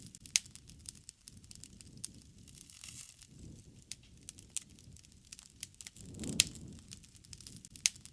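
Campfire crackling: many sharp pops and snaps over a low rumble of flames that swells and fades every few seconds. One of the loudest pops comes about six seconds in.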